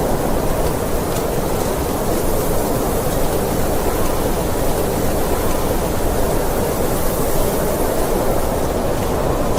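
Blizzard wind blowing steadily: a dense, even rush of noise, heaviest in the low and middle range, with no gusts or breaks.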